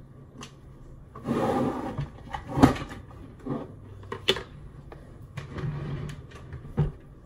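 Small objects handled on a desk close to the microphone: a scraping, rustling stretch, then a string of sharp knocks and clacks, the loudest about two and a half seconds in.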